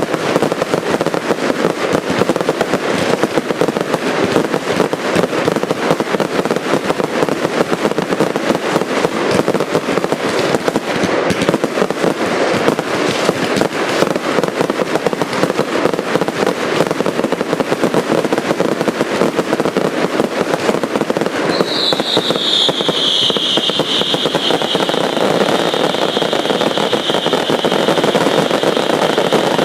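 A fireworks display: dense, continuous crackling and popping from cakes and crackling effects. About two thirds of the way in a shrill high whistle sets in, dips slightly in pitch and keeps on over the crackle.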